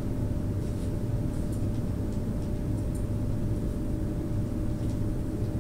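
Steady low mechanical hum of room background noise, with a faint steady tone above it and no change throughout.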